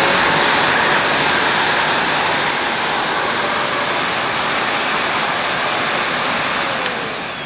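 Sebo Felix Pet ePower upright vacuum cleaner running steadily on a test run after its exhaust filter has been refitted, a loud even rush of airflow with a faint high motor whine. Near the end there is a click and the motor begins to wind down, its note falling.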